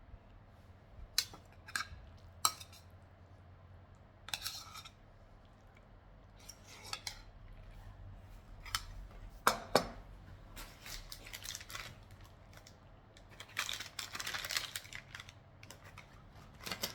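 Scattered sharp clicks and clinks of small objects handled at a table, with busier stretches of clinking and rustling in the second half.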